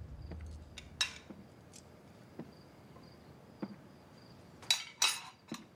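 Dishes and cutlery clinking as a plate is handled, a few light clinks with the loudest pair near the end, over faint crickets chirping steadily.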